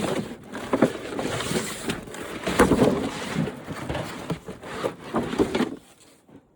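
Clattering and rustling of loose flat-screen TV parts being handled, with many sharp knocks and clicks, stopping near the end.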